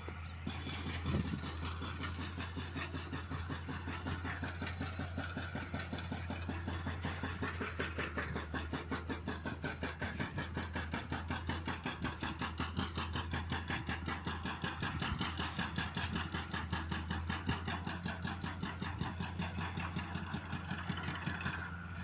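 Hydraulic breaker on a CAT 320C excavator hammering concrete: a rapid, even train of blows, many a second, over the steady drone of the diesel engine.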